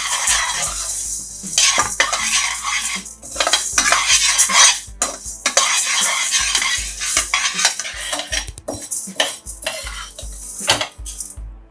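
Steel ladle scraping and stirring dry lentils (toor, chana and moong dal) around a stainless-steel kadai as they dry-roast. The grains rattle against the metal in repeated scraping strokes with brief pauses.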